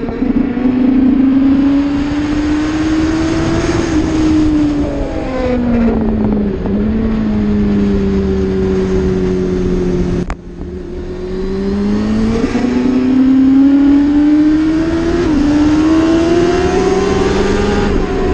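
Motorcycle engine heard from an onboard camera on a track lap. The engine note climbs under acceleration and steps down at gear changes about four and fifteen seconds in. It holds a lower, steadier note for a few seconds before a brief sharp break about ten seconds in, then climbs again. Wind noise runs underneath.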